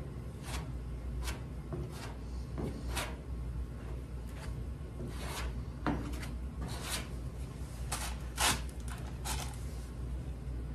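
Body filler being spread with a hand spreader over the seam between a car door and quarter panel: a dozen or so short scraping strokes at an irregular pace, the loudest near the end.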